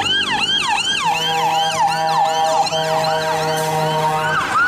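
Electronic fire-truck siren in a fast yelp, its pitch sweeping up and falling about three times a second. Steady tones sound underneath it from about a second in until near the end.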